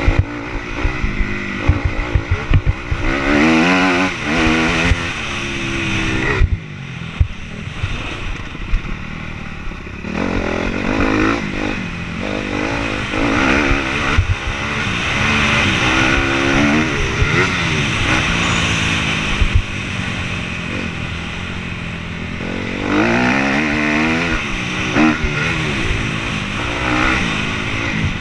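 Motocross dirt bike engine revving hard and easing off again and again as the rider works the throttle and shifts through the turns and straights, with a quieter off-throttle stretch a few seconds in. Short knocks and rattles from the rough track come through under the engine.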